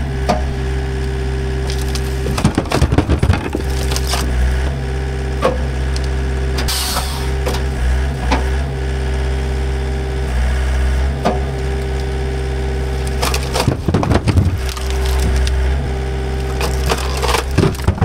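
Split firewood dropping out of a skid-steer-mounted firewood processor and clattering into a truck bed in a few bursts of knocks, around three seconds in, around fourteen seconds in and near the end, over the steady running of the compact track loader's diesel engine.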